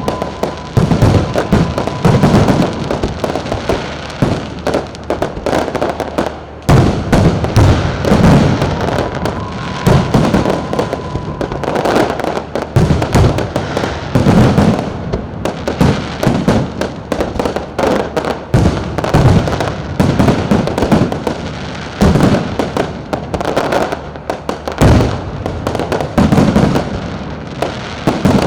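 Fireworks display: a loud, near-continuous barrage of sharp bangs from bursting fireworks, overlapping one another with hardly a pause.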